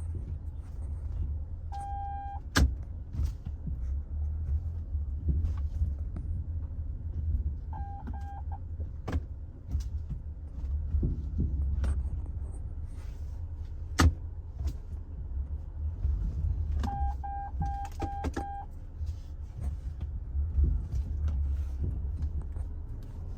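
Sharp knocks from the suspension of a Chevrolet Malibu as it pulls away, a few single clunks several seconds apart over the low rumble of the car: the sign of a damaged rear knuckle. A short electronic beep sounds in three spells, several times in a row near the end.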